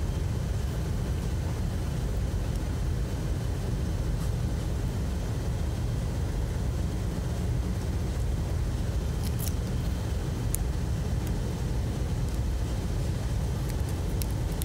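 Steady low background rumble, with a few faint clicks about two-thirds of the way through and near the end.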